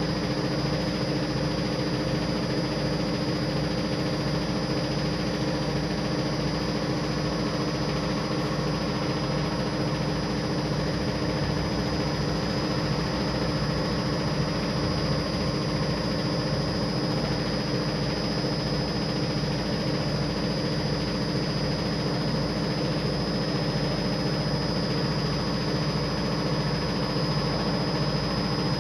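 SPIN3300 carpet spinner running at a steady speed, its 3 HP electric motor and stainless drum giving an even whir with a constant high whine.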